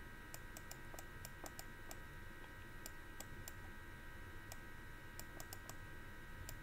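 Faint computer mouse clicks, irregular and about three a second, over a steady faint electrical hum.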